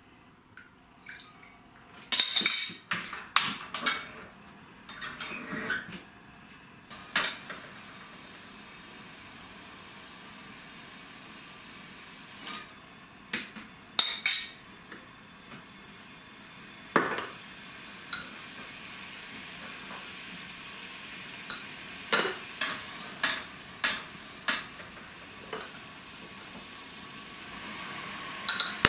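Stainless steel ladle and spoons clinking and knocking against a stainless saucepan as seasonings are measured in, in irregular clusters, over a steady hiss from a gas burner heating the pan.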